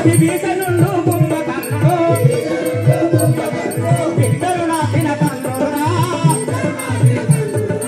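Live folk-theatre music: a drum beating a steady rhythm of about two strokes a second, a rattling percussion keeping time over it, and a wavering melody line with some singing.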